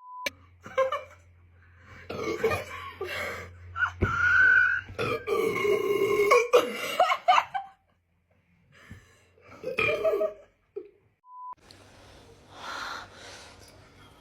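Loud, drawn-out burps from people who have just chugged a carbonated soft drink (Sprite) in the Sprite Challenge. The longest runs about three seconds in the middle, with some laughter around them. A short beep sounds near the start and again near the end.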